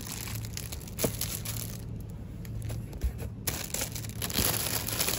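Plastic wrapping crinkling and a cardboard box rustling as wrapped items are handled, with a couple of sharp knocks, over a steady low hum.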